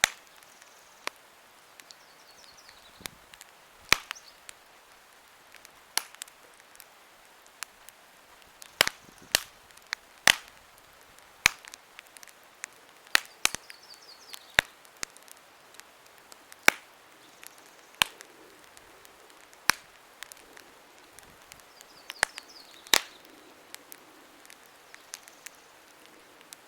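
Wood campfire crackling: irregular sharp pops and snaps, a few much louder than the rest, over a quiet hiss.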